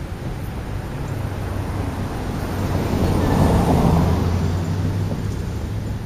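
A road vehicle passing by: a low rumble that swells to its loudest a little past halfway and then fades, over a steady low hum.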